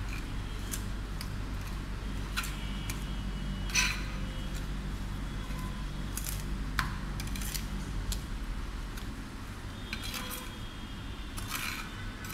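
Metal spatula scraping through wet soil and clicking against a glass plate as water is mixed into the soil sample, in irregular strokes with a few sharper clinks, over a steady low hum.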